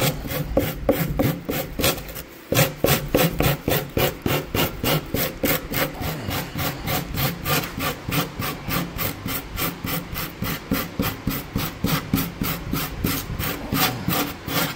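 Small handheld grater-style rasp scraping rigid foam in quick back-and-forth strokes, about three to four a second, with a short pause about two seconds in: shaving down and softening the edges of a carved foam piece.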